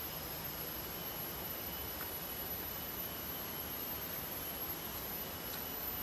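Tropical forest ambience: a steady high-pitched whine of insects over an even rushing hiss, unchanging throughout, with a faint tick or two.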